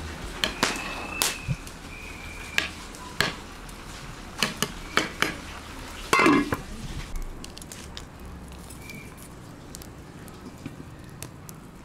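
A metal spoon knocking and scraping against a metal pot while rice is stirred, some knocks followed by a short ringing clink. About six seconds in, a metal lid clatters onto the pot, and after that a wood fire crackles faintly.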